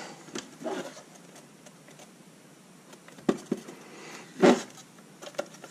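Laser-cut plastic panels of a box held together with masking tape, knocking and squeaking against each other as the box is handled and turned over. There are a couple of sharp knocks about three seconds in and a louder one about a second later.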